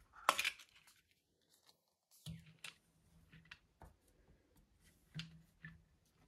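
A small ring binder with clear plastic photocard sleeves being handled: a short crinkly rustle near the start, then a string of light taps and clicks as the cover is opened and laid flat on the desk.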